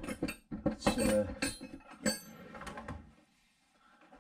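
Metal hand tools clinking and clattering together as a spanner is picked out from among them, a busy run of clinks over the first three seconds that fades out near the end.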